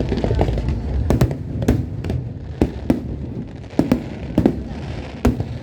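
Aerial fireworks bursting: a string of sharp bangs at irregular intervals, some in quick pairs, over a steady low rumble.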